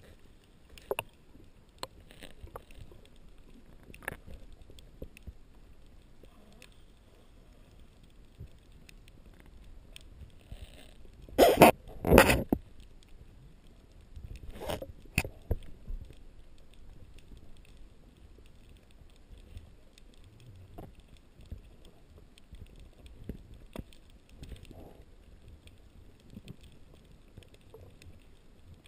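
Underwater sound picked up by a camera in a waterproof housing: a low rumble with sparse clicks and knocks, two loud noisy bursts about eleven to twelve seconds in, and two shorter ones a few seconds later.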